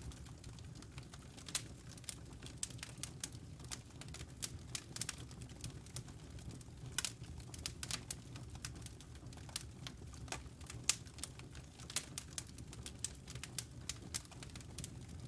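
Wood fire crackling: irregular sharp snaps and pops, several a second, over a steady low rumble.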